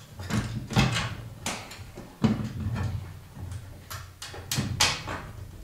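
Irregular metallic knocks and clatters, about two a second, of hand work in a truck's engine bay while a radiator and its transmission cooler lines are fitted.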